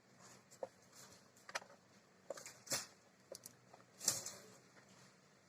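Scattered small clicks, taps and brief scrapes of hands handling laptop hardware, about one every half second to second, with two slightly longer scrapes near the middle and about four seconds in.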